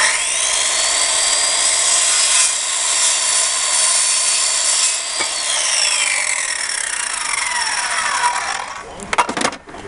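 Small circular saw starting up with a quickly rising whine and cutting through a thin wooden strip. About five seconds in, the whine falls steadily as the blade winds down, and a few sharp knocks follow near the end.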